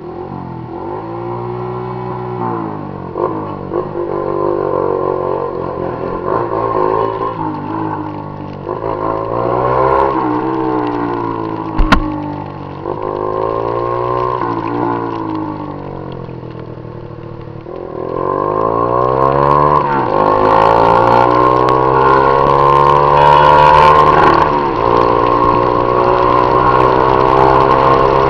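Honda CG Titan 150's single-cylinder four-stroke engine running through an aftermarket Viúva Negra exhaust while riding, its pitch climbing and falling repeatedly as it accelerates and eases off. A single sharp click comes about twelve seconds in, and for the last third the engine is louder and holds higher revs.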